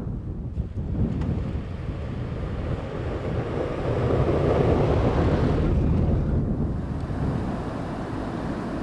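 Wind gusting across the microphone, a low steady rumble that swells louder about four seconds in, then eases.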